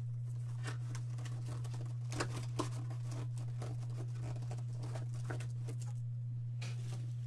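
Clear plastic wrap being torn and crinkled off a trading-card box, in scattered short crackles with two sharper snaps about two seconds in. A steady low hum runs underneath.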